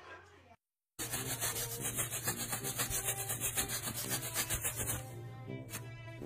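Fast, rhythmic rubbing, several strokes a second, over a low steady hum. It starts after a brief silence about a second in and dies down near the end.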